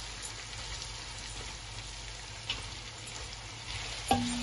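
Sliced onions frying in hot oil and ginger-garlic paste in a nonstick frying pan: a steady, even sizzle as they are stirred with a spatula. A single knock comes near the end.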